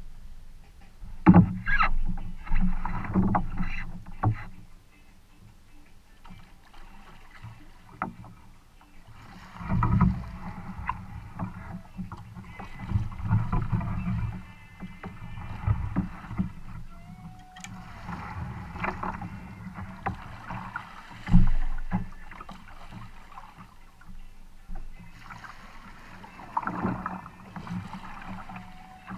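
Double-bladed kayak paddle strokes dipping into and pulling through creek water, with splashing and dripping that come in bursts as the stroke rhythm goes on. A couple of louder low thumps stand out, one about a second in and one near 21 seconds.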